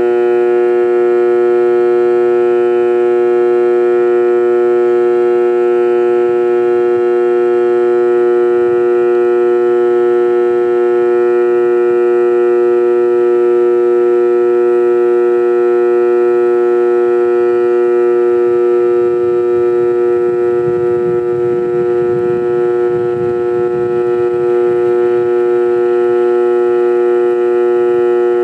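Sanitaire vacuum cleaner motor running steadily with a loud, constant whine. A low rumble joins for a few seconds past the middle.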